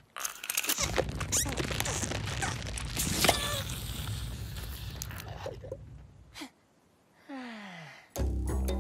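Cartoon sound effects and wordless character vocal noises, busy and overlapping, then a short hush. A falling glide in pitch follows, and music comes in near the end.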